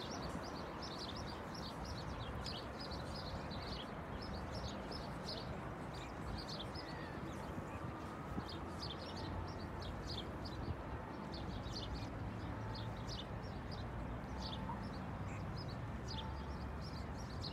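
Small birds chirping in short, frequent bursts over a steady background rumble of the lakeside surroundings.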